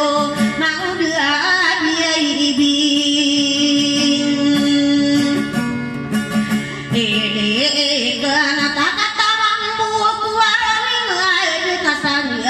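A woman singing to her own strummed acoustic guitar through a microphone. About two seconds in she holds one long note.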